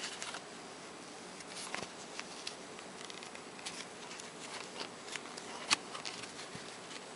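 Faint scattered clicks and rustles of a metal crochet hook and yarn being worked by hand, over a steady low hiss, with one sharper click about three quarters of the way through.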